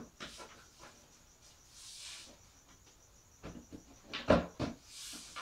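Wooden chuck box top knocking as it is pressed and worked down onto the sides' joints: a few light knocks just after the start, then a cluster of louder knocks about four seconds in.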